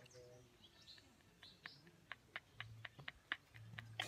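Near silence: faint outdoor ambience with a few faint high chirps and scattered soft clicks.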